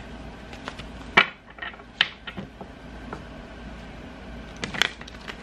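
Tarot cards being handled and laid down on a table: a few sharp taps and rustles, the clearest about a second in, another at two seconds, and a quick cluster near the end.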